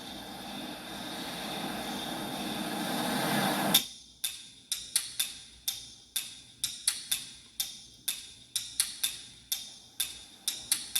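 Music played through Logitech Z150 desktop speakers for a sound test. A hissing swell builds for about four seconds and ends in a sharp hit, then a beat of sharp percussive hits follows, about two to three a second.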